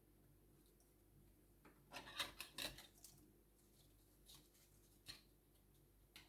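Near silence, broken by a few faint clicks and rustles about two to three seconds in and once more near five seconds: old typewriter ribbon being worked out of the ribbon carrier with tweezers.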